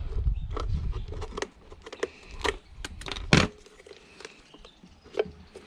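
Short plastic clicks and knocks as the plastic motor housing of a Dyson DC41 vacuum cleaner is handled and prised apart with a screwdriver. One sharper knock comes about three and a half seconds in, and a low rumble runs through the first second or so.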